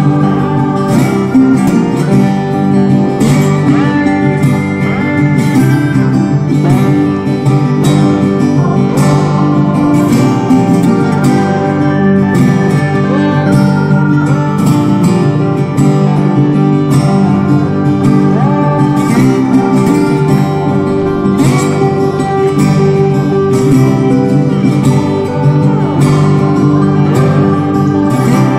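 Background music: plucked acoustic guitar over a steady beat.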